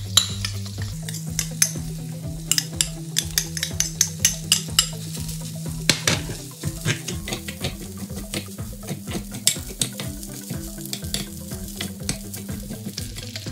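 A metal spoon stirring rice in a hot non-stick frying pan, with many irregular clicks and scrapes against the pan over a steady sizzle of frying oil.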